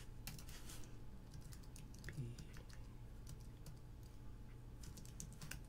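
Typing on a computer keyboard: quiet, irregular key clicks, with a quick run of keystrokes near the start and another near the end.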